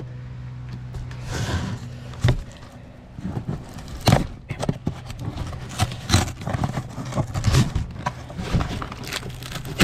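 Packaging being pulled and torn open by hand without a knife: irregular knocks, scrapes and rustles.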